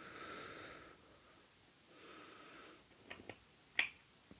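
Two soft breaths through the nose close to the microphone, then three small sharp clicks in the last second and a half, the last the loudest, as a toy model car is handled.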